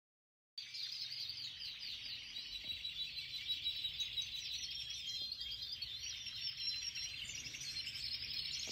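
Many domestic canaries in a flight cage chirping and trilling together: a dense, high chorus with a few longer held notes. It starts suddenly about half a second in and cuts off at the end.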